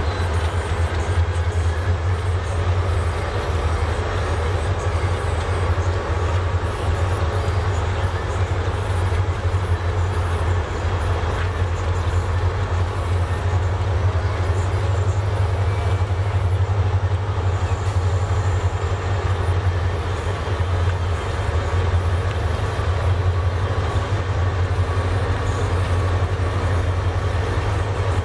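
Diesel locomotive of an express passenger train running steadily: a constant low engine hum over an even train noise that neither rises nor falls.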